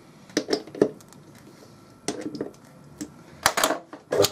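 Irregular metal clicks and knocks as a fixture holding a steel axle blank is fitted into a Myford ML7 lathe's chuck, the loudest a pair of sharp knocks about three and a half seconds in.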